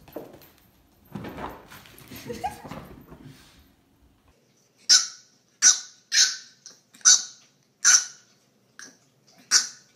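French bulldog puppy yapping: a run of short, high-pitched barks about every two-thirds of a second, starting about five seconds in. Before them come a few seconds of lower, muffled sounds.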